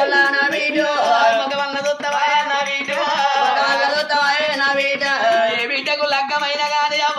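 Telugu oggu katha folk singing: a single voice sings a long, wavering, ornamented melodic line without a break, with hand-drum beats underneath.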